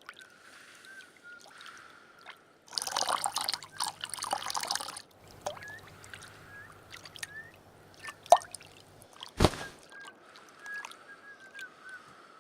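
Water dripping and plopping, small drops landing in water over and over, with a burst of louder water noise from about three to five seconds in. A single sharp thump comes near the end.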